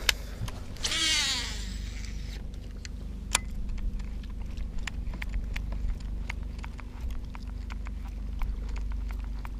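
Baitcasting reel whirring on a cast about a second in, its whine falling in pitch as the spool slows. Then a buzzbait is retrieved across the surface with irregular clicking and clacking, over a steady low hum from the electric trolling motor.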